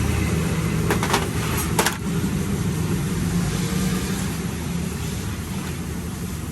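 Engine idling steadily at low revs, with two sharp clicks about one and two seconds in.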